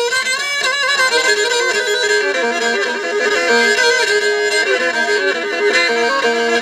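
Live Turkish folk music in an instrumental passage: a violin plays a melody of short, stepping notes.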